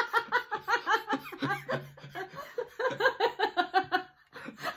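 A man and a woman laughing together in quick rhythmic bursts, breaking off briefly near the end.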